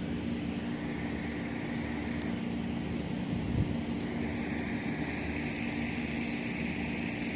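Steady low droning hum over a constant hiss, with a higher hissing band that grows stronger about halfway through.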